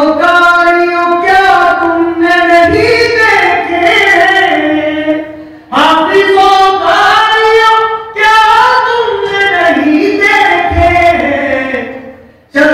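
A solo man's voice singing a devotional recitation without accompaniment, amplified through a microphone, in long held melodic phrases with short breaks about six and eight seconds in.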